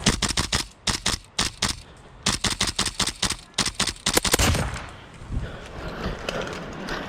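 Airsoft rifle firing in quick strings and single shots over the first four and a half seconds, each a sharp crack. Wind rumble follows.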